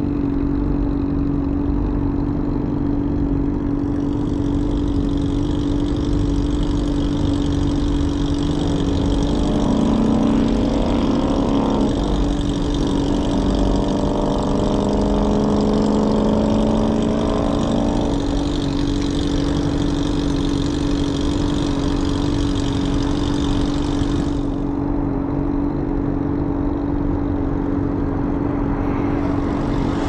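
Traffic at an intersection: a steady engine hum from vehicles idling at a red light. Between about a third and two thirds of the way through, a vehicle's engine note rises as it accelerates past, with tyre hiss from passing cross traffic.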